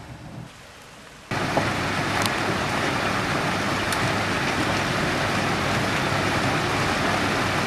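Heavy rain falling, a steady loud hiss that cuts in abruptly a little over a second in.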